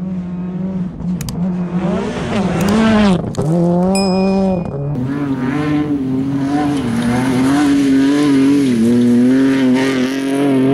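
Rally car engine revving hard on a gravel stage, its pitch climbing and dropping over and over through gear changes.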